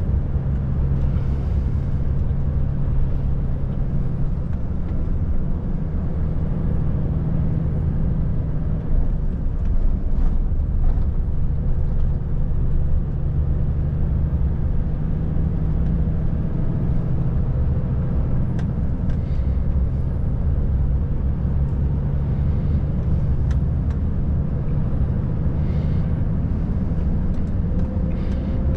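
Volvo FH540 truck driving on the road, heard from the cab: its 13-litre straight-six diesel runs steadily under a bed of road and tyre noise, its pitch shifting a few times as the revs change.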